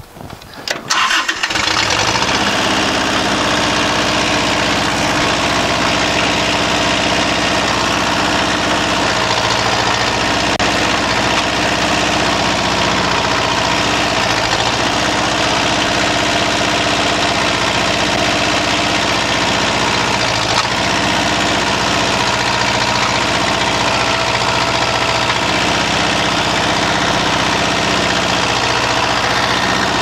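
Compact tractor engine starting about a second in, then running steadily.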